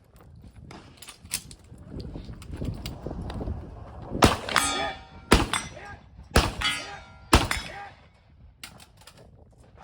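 Four shotgun shots from a VR80 12-gauge semi-automatic shotgun, about a second apart, each followed by the ringing of struck steel targets. Before them come rumbling movement and gun-handling noise, and a few lighter clicks near the end.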